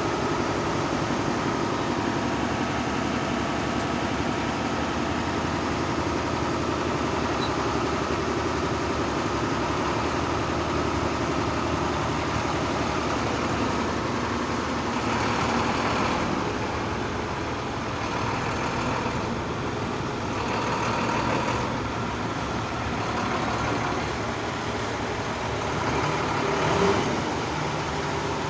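Heavy diesel engine idling steadily, with a few brief bursts of hiss about halfway through and again near the end.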